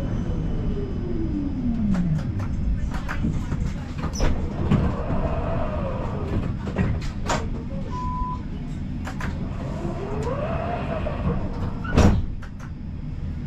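Siemens Combino 13G tram slowing to a stop: its motor whine falls steadily in pitch over the first two seconds. It then stands with scattered clicks and clunks, a short beep about eight seconds in, and a loud knock near the end.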